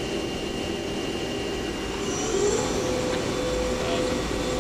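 Hyundai-Wia L400C CNC lathe spindle and 15-inch hydraulic chuck running steadily at about 800 RPM in the high range of its two-speed gearbox. A steady mechanical hum, with a slight rise in pitch about two seconds in.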